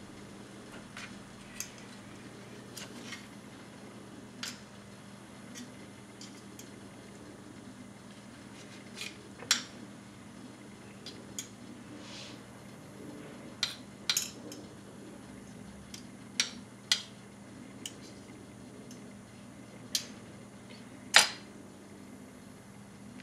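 Steel knife and fork cutting raw meat on a granite countertop: irregular sharp clicks as the blade and tines strike the stone, a dozen or more, the loudest near the end. A faint steady low hum lies underneath.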